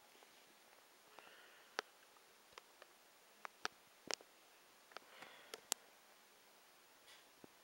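Near silence broken by about ten short, sharp clicks at uneven intervals, the loudest a double click about four seconds in, with a couple of faint rustles.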